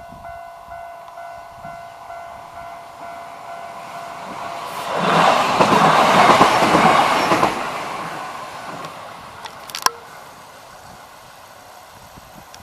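An Enshu Railway electric train passes over a level crossing. The rumble of its wheels swells over a couple of seconds, with a rhythmic clatter over the rail joints, then fades away. A single sharp click comes near the end.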